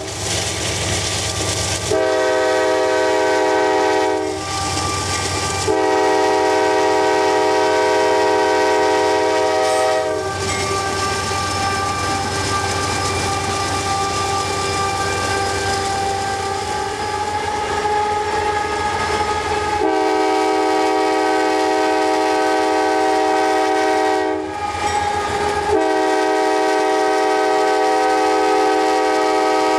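CSX GE AC4400CW diesel locomotive's multi-chime air horn, sounded in several long blasts with brief gaps between them, heard while pacing the moving train. Low rumble and rail noise fill the gaps.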